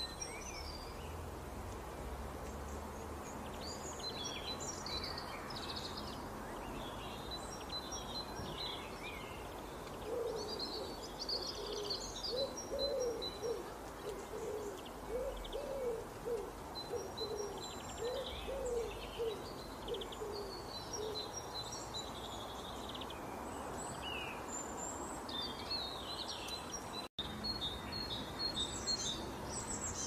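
Small songbirds chirping and twittering throughout. About a third of the way in, a larger bird's low call joins, repeated roughly once a second for about ten seconds.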